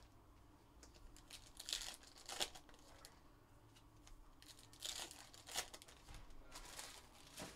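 Foil trading-card packs being torn open and their wrappers crinkled by hand, in several short crackling bursts.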